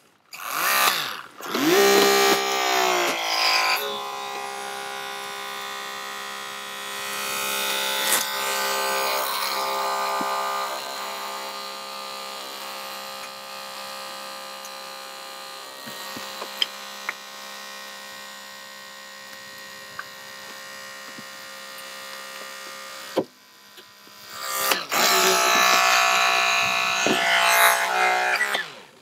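Holmatro hydraulic rescue cutter's motor and pump whining as it cuts through the car's steel. The whine rises at the start and runs steady under load for about twenty seconds. It stops briefly, then spins up again near the end.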